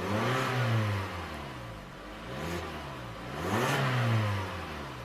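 2011 Hyundai Elantra's 1.8-litre 16-valve four-cylinder engine revved twice. The first rev peaks about half a second in and the second near the four-second mark, each rising in pitch and falling back toward idle.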